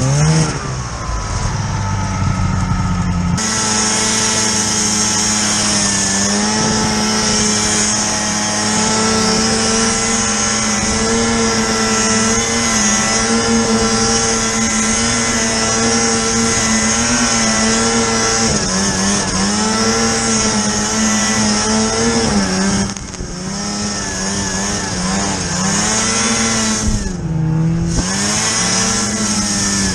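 Snowmobile engine running hard at steady high revs, with hiss from the track and snow. In the second half the pitch dips and climbs back several times as the throttle is eased off and opened again.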